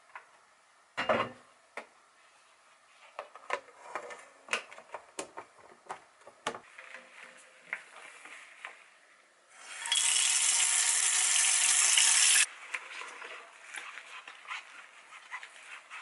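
Clinks and knocks of dishes and utensils, then a kitchen tap running into a stainless steel sink for about three seconds before cutting off suddenly, followed by lighter rubbing and clinking as an enamel pot is scrubbed with a sponge.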